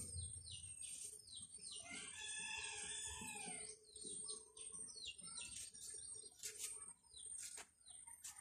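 Faint outdoor birdsong: small birds chirping again and again in short falling notes, with a chicken calling once for about a second and a half near the middle.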